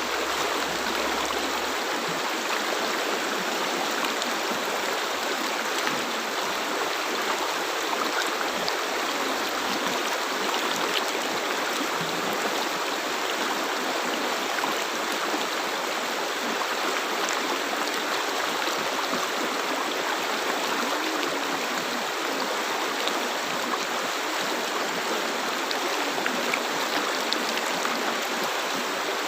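River water flowing steadily over stones: a constant rushing babble with small splashes and gurgles.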